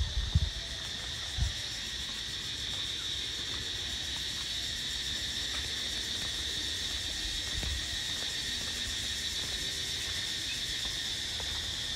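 Steady, high-pitched chorus of insects, such as cicadas or crickets, droning without a break. A couple of low thumps come in the first second and a half.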